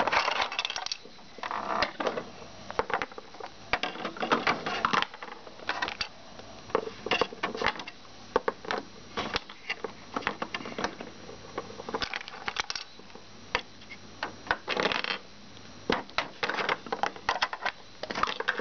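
Small hard plastic toy pieces and Littlest Pet Shop figures being picked up, shuffled and set down on a plastic toy-house floor: clicks, taps and light clatter in short flurries with pauses between.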